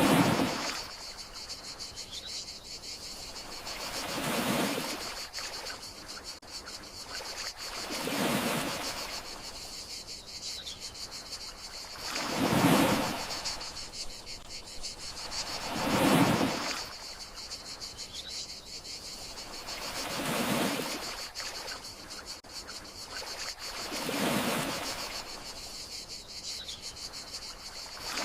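Gentle sea waves washing onto the shore about every four seconds, each swelling and fading, over a steady high chorus of crickets.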